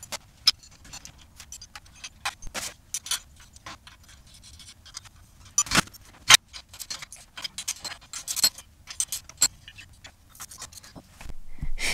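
Irregular metallic clicks and clinks of hand tools and loose moped engine parts being picked up and set down, with two sharper clanks about halfway through.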